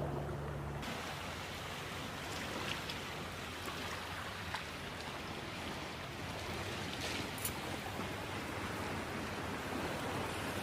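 Steady rushing noise of surf washing on a rocky shore, with a few faint clicks. Under a second in, a low engine hum cuts off.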